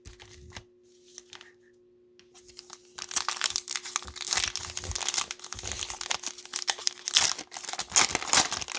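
Plastic wrapper of a pack of football trading cards being torn open and crinkled. A few faint crackles at first, then continuous loud tearing and crinkling from about two and a half seconds in, stopping just before the end.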